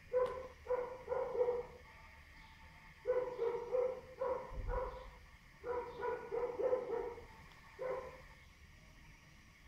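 A dog barking in quick yapping runs of four or five barks with short pauses between, and a single bark near the end.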